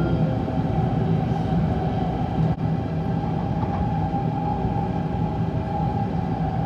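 Steady running noise of a Tokaido Shinkansen bullet train at speed, heard inside the passenger car: an even rumble with a constant low hum.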